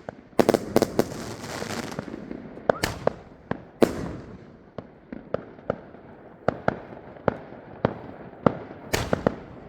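Consumer firework cake firing a series of shots. A dense volley with crackle comes in the first two seconds, then single sharp reports about two a second, and a quick cluster of shots near the end.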